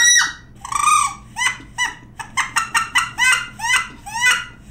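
Duck Commander Woody wood duck call blown in a string of about a dozen short squealing notes, each rising in pitch, coming faster about halfway through. It is the call sequence for wood ducks that have committed and are coming in.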